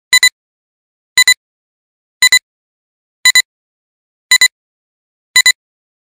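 Countdown leader beeps: six short double beeps about a second apart, each a high electronic tone, ticking off the numbers of a video intro countdown.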